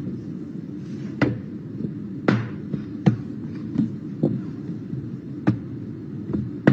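Small metal mug and metal jug knocked down onto a tabletop in quick sleight-of-hand handling, about eight sharp irregular knocks over a steady low hum.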